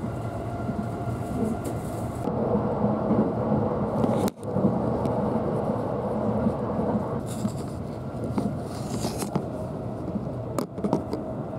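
Running noise of a limited express train heard from inside the passenger car: a steady rumble of wheels on rail, with a brief dip in level about four seconds in and a hissier stretch later on.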